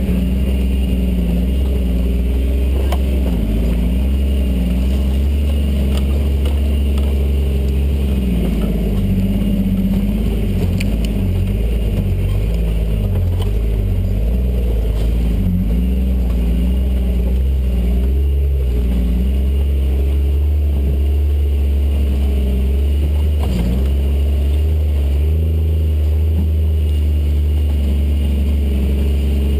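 Jeep engine pulling the vehicle up a steep trail, heard from inside the open-top Jeep. The engine runs steadily, with its revs wavering up and down for a stretch in the middle.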